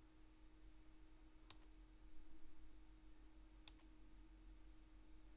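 Near silence: a steady low hum, with two faint sharp clicks about two seconds apart.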